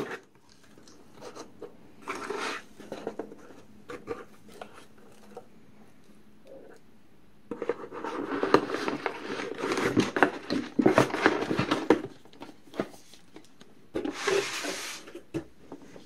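Cardboard shipping box being handled: flaps pushed open and a boxed keyboard rubbing and scraping against the cardboard as it is worked loose and lifted out. The rustling comes in short bursts, with the longest, loudest stretch of scraping in the middle and another short burst near the end.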